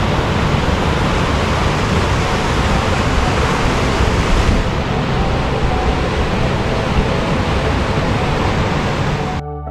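River rapids rushing through a narrow rock gorge: a loud, steady roar of white water that cuts in and out abruptly, its hiss dulling a little about halfway through.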